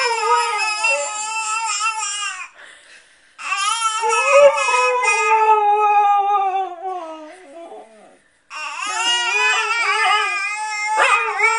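Siberian husky howling and 'talking' in three long, drawn-out calls whose pitch wavers up and down, with brief breaks about two and a half and eight seconds in.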